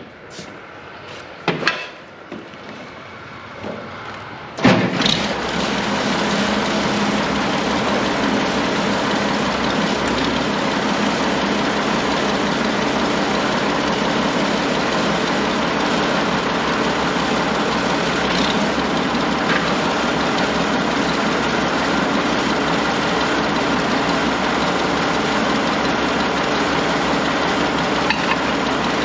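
A few knocks, then about five seconds in the Allis-Chalmers 180 tractor's six-cylinder engine starts and settles into a steady, smooth idle.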